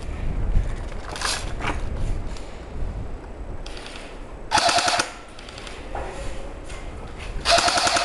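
Airsoft rifles firing short full-auto bursts, a rapid rattle of shots. There are three bursts about three seconds apart, and the one in the middle is the loudest.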